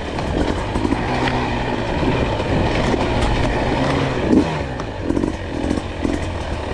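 Two-stroke enduro motorcycle engine running under load, its pitch rising and falling as the throttle is worked.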